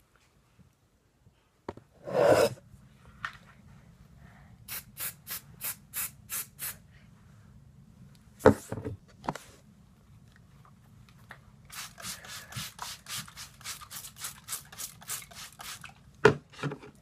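Runs of quick rubbing strokes close to the microphone as hair and cloth socks are handled, the longest and fastest run, about five strokes a second, near the end. A loud bump about two seconds in and a sharp knock near the middle break in, over a faint low hum.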